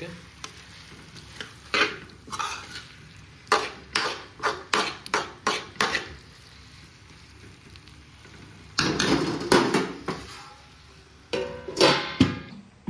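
A metal spoon stirs and scrapes jackfruit curry against a steel kadhai in a run of short strokes. Near the end come louder clattering bursts as the steel lid goes onto the pan.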